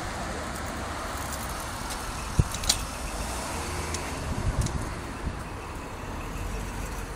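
Road traffic on a city street: a steady wash of cars passing, with a couple of sharp clicks a little over two seconds in.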